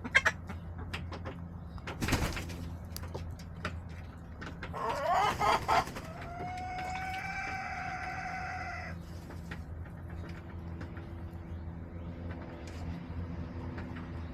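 A rooster crows once, starting about five seconds in: a quick run of rising notes, then a long held final note of about three seconds. Hens cluck softly around it, with a few sharp knocks, the loudest at the very start and about two seconds in, over a steady low hum.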